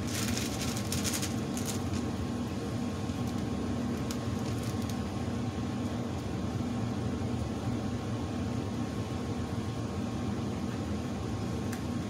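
Steady hum of a furnace running, with a plastic bag crinkling briefly near the start.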